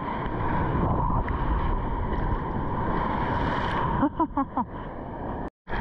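Water churning and wind buffeting a GoPro held low in the surf as a wave breaks close by. About four seconds in come a few short, quick calls, then the sound drops out briefly near the end.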